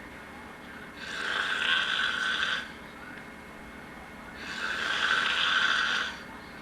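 A person snoring in their sleep: two long snores about three and a half seconds apart, each lasting about a second and a half, with quieter breathing between.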